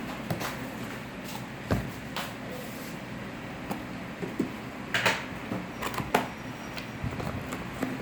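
Scattered light knocks and clicks of objects being handled, with a few sharper ones about two seconds in and again around five and six seconds in.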